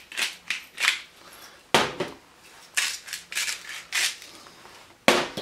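Sea salt and black pepper grinder bottles being twisted by hand, grinding in quick short scratchy bursts, a few a second. Two sharp knocks, about two seconds in and near the end.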